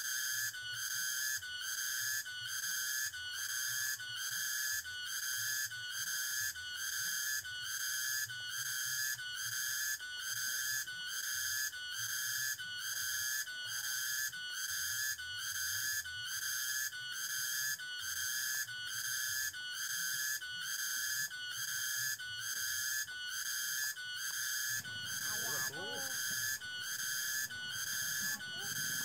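Cicadas shrilling, a high, piercing drone that swells and drops in an even pulse about four times every three seconds.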